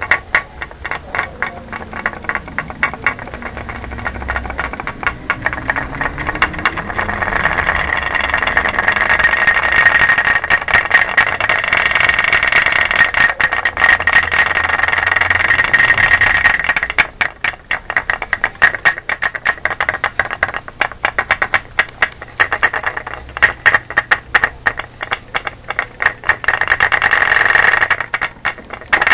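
A machine running with a rapid, dense clatter of clicks. A steady high whine swells in from about seven seconds in, then drops away suddenly at about seventeen seconds, leaving the clatter.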